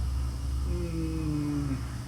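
A man's voice holding a low, wordless 'mmm' hesitation hum for about a second, falling slightly in pitch, over a low steady background hum.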